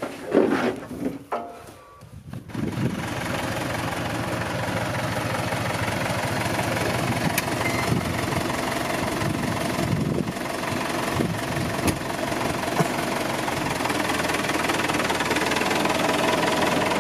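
A John Deere tractor's diesel engine idling steadily, coming in about two and a half seconds in after a few scuffs and knocks.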